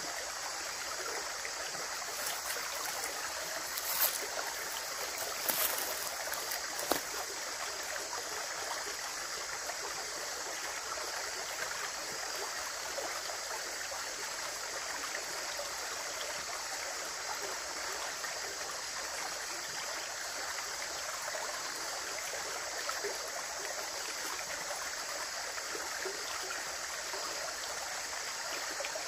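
Running water flowing steadily, with a few brief sharp sounds about four to seven seconds in.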